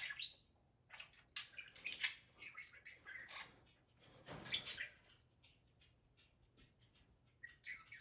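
Budgerigar chattering and chirping in quick bursts of high chirps, busiest over the first five seconds, then quieter, with a few more chirps near the end.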